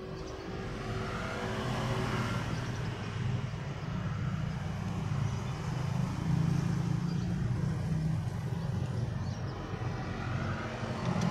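Low rumble of a motor vehicle's engine running, swelling over the first couple of seconds and then holding steady.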